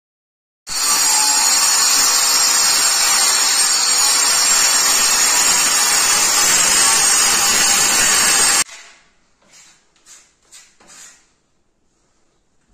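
A corded handheld electric power tool running steadily for about eight seconds with a high whine, stopping abruptly. After it come a few faint knocks and scrapes.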